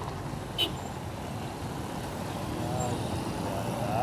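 Steady rumble of road traffic at a busy city junction, with one short sharp knock a little over half a second in.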